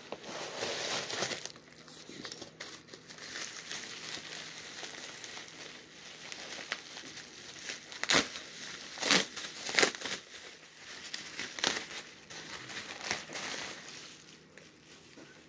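Plastic bubble wrap crinkling and rustling as it is handled and unwrapped by hand, with several sharper crackles in the second half.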